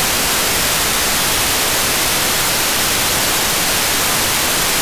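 Loud, even FM receiver static from a software-defined radio tuned to the ISS 145.800 MHz amateur downlink, brightest in the treble, with no voice on the channel: the open-squelch hiss of a gap between transmissions.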